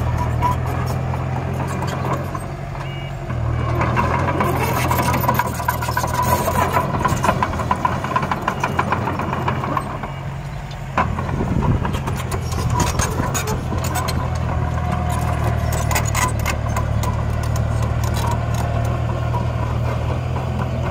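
Diesel engine of a mini bulldozer running and working, with scattered clanks and knocks. The engine note drops briefly about two seconds in and again about ten seconds in.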